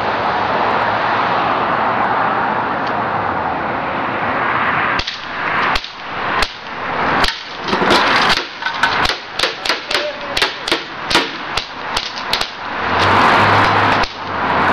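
A BB handgun fired rapidly: a string of about twenty sharp cracks, two to three a second, starting about five seconds in and stopping near the end. A steady rushing hiss runs under the first part.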